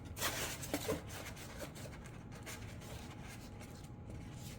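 Faint rubbing and scratching as a glued rudder piece is pushed into place on an RC jet's body, with a short louder scrape just after the start.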